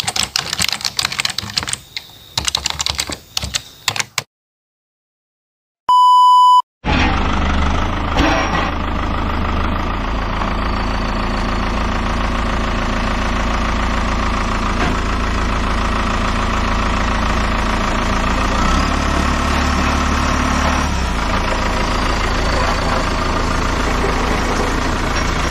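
Typewriter-style key clicks for about four seconds, then a short electronic beep. After that comes a tractor's diesel engine running steadily close by.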